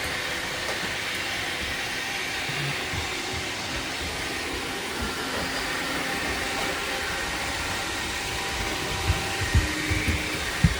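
Roomba robot vacuums running, a steady whirring hiss of suction motor and brushes. A few low thumps come near the end.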